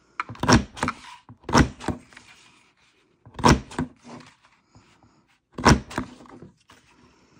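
Handheld lever paper punch cutting heart shapes from cardstock, pressed four times about every one and a half to two seconds, each press a quick double clack as the punch snaps through and springs back.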